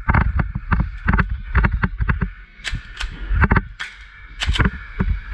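Quick running footsteps on a wooden floor in an airsoft course, about six a second, then from about two and a half seconds in, half a dozen sharp cracks of airsoft fire.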